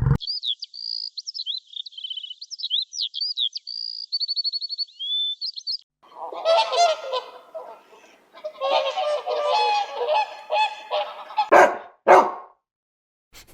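A small songbird singing a quick, varied song of high whistles and trills for about six seconds, followed by waterfowl honking repeatedly, ending with two short, sharp honks.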